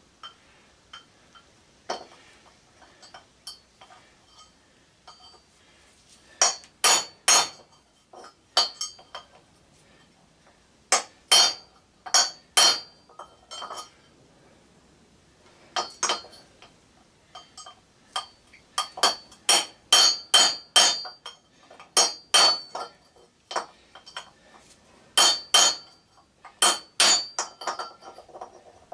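Hammer blows on a steel punch against a cast aluminum push mower flywheel: sharp metallic clinks in quick groups of two to five, with pauses between, driving the magnet out through the aluminum.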